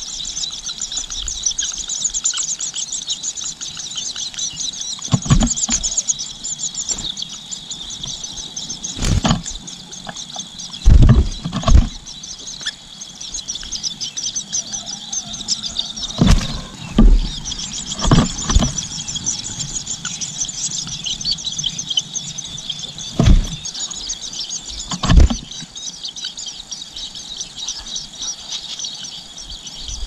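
Long-tailed shrike nestlings begging at the nest: a continuous high, rapid chatter of calls that lulls for a few seconds around the middle. Several dull thumps at irregular intervals are louder than the calls.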